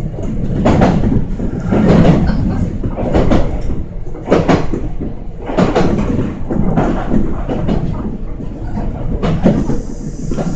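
Kintetsu electric train running along the line, its wheels clacking over rail joints in a steady beat of about one clack a second, over constant rumbling running noise.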